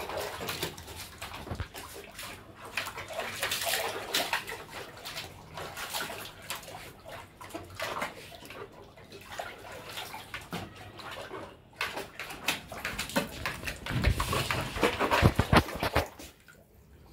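Siberian husky puppy pawing and splashing water in a plastic tub: irregular splashes and sloshing, loudest in a burst about two seconds before the end, then dropping off suddenly.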